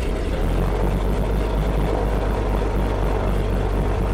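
Big-bore Continental six-cylinder engine of a Beechcraft A36 Bonanza running steadily at low throttle with the propeller turning, seconds after catching on a cold start.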